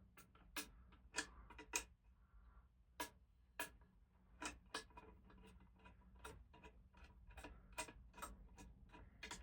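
A string of faint, sharp clicks and taps at irregular intervals, roughly two a second.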